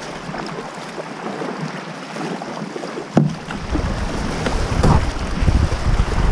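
Sea water sloshing and washing around a Feelfree Nomad kayak and nearby rocks as it is paddled. A sharp knock about three seconds in, then wind rumbling on the microphone.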